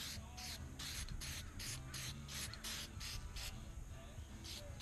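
Aerosol spray-paint can spraying in quick short bursts, about four hisses a second, with a brief pause near the end.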